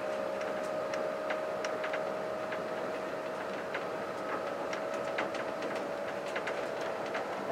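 Inside an SNCF B 81500 (AGC) multiple-unit train running along the line: a steady whine over a rumbling hum, with irregular small clicks and rattles.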